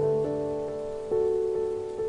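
Slow, sad solo piano music, a new note struck about a second in and left to ring, over a steady hiss of rain.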